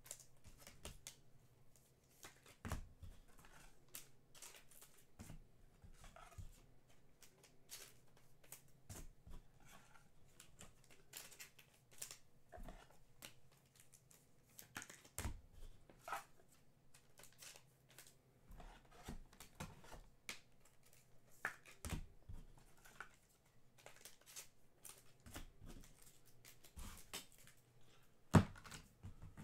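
Scattered light taps, clicks and rustles of trading cards and packaging being handled, with a sharper knock near the end. A faint low hum runs underneath.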